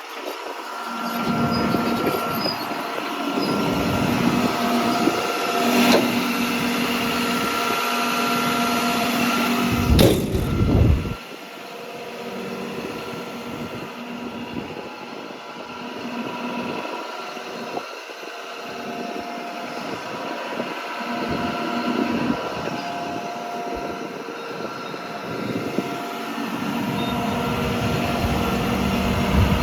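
John Deere 210G LC excavator's diesel engine idling steadily, with rumbling handling noise close by. A sharp knock comes about ten seconds in, after which the engine sounds quieter.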